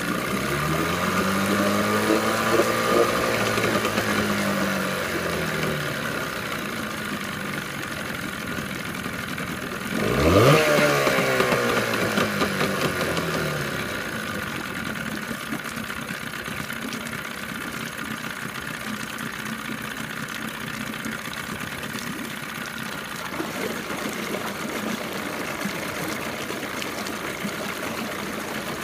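1998 Johnson 9.9 hp two-cylinder two-stroke tiller outboard running with its lower unit in a barrel of water. It revs up and settles back near the start, revs again sharply about ten seconds in and falls back over a few seconds, then idles steadily.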